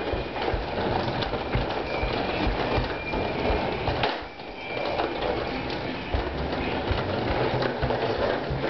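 Plastic wheels of a Fisher-Price push-along toy trolley rumbling and clattering over a hardwood floor as it is pushed along, with a brief lull about four seconds in.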